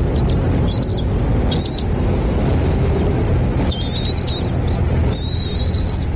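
Birds calling in short clusters of high, thin chirps and whistles, several times, over a steady low rumble.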